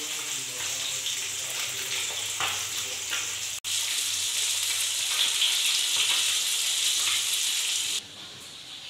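Bata fish shallow-frying in hot mustard oil in an aluminium kadai, a steady sizzle. It breaks off for a moment about three and a half seconds in, then drops away sharply near the end.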